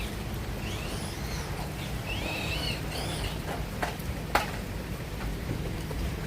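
A bird chirps a few short, arching calls over a steady low rumble. Two sharp clicks come about two-thirds of the way through.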